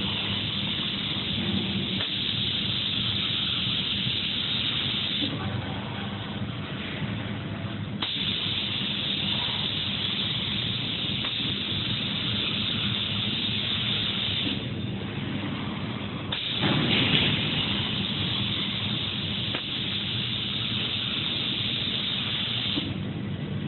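Spray gun of a five-axis CNC spraying machine hissing in three long passes of about five to six seconds each, cutting out for a couple of seconds between them, over a steady low machine hum.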